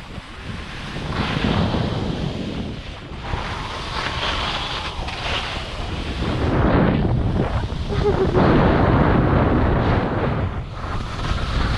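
Wind buffeting the microphone during a downhill ski run, over the hiss and scrape of Armada Declivity 92 Ti skis carving on snow, swelling and fading with the turns.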